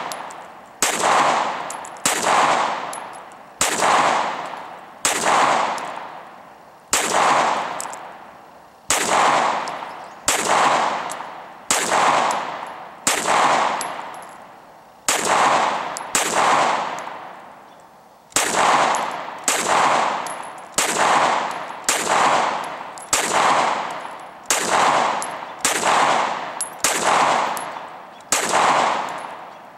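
Single semi-automatic shots from a 9mm Glock 17 in a KPOS Scout carbine chassis, each report trailing off in a long echo. They come at a steady pace of about one a second, then quicken to about one and a half a second in the second half.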